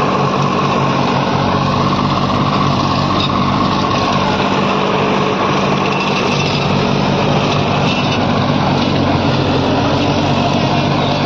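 Tractor diesel engine running steadily under load as it drives a PTO rotavator tilling a grassy field, the blades churning through the soil.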